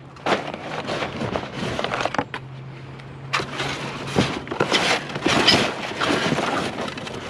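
Junk being rummaged through by hand: rustling and clattering with scattered knocks as pieces are moved and pulled out.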